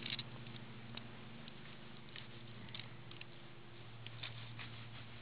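Faint scattered clicks and rustles of close handling as fishing pliers work a hook out of a pike's mouth, over a steady low hum.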